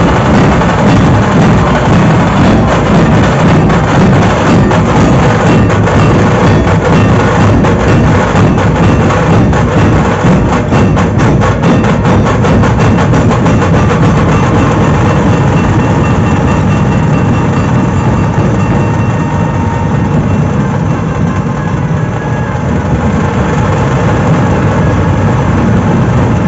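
Dhol barrel drums of a procession troupe, beaten together in a loud, fast, steady rhythm. The sharper high strokes thin out over the last few seconds.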